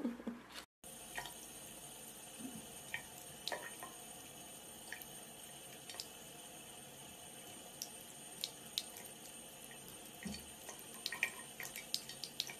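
A bathroom tap running a thin stream of water into a ceramic sink: a steady splashing hiss with scattered small drips and splashes, starting just under a second in.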